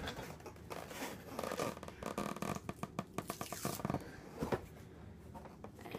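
Plastic packaging on a new scooter deck crinkling and being pulled off: a string of quick crackles, with a longer ripping rasp from about a second and a half in until nearly four seconds.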